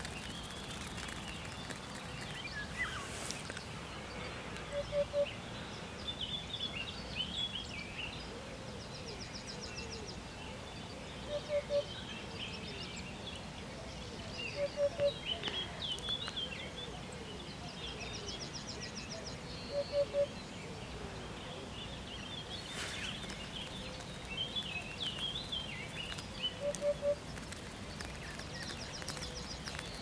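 Eurasian hoopoe singing its low 'oop-oop' song, short phrases of two or three notes repeated about every five seconds. Other small birds chirp and trill higher up in the background.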